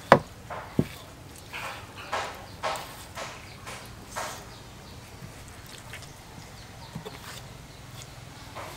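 A kitchen knife slicing and scraping through the hide and membrane of a raw cow leg on a wooden chopping board, in a series of short scratchy strokes, with two sharp knocks in the first second.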